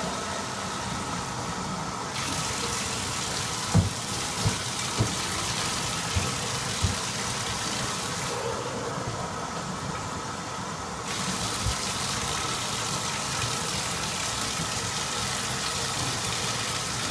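Tap water running steadily into a bathtub, an even hiss, with a handful of soft knocks in the first two-thirds.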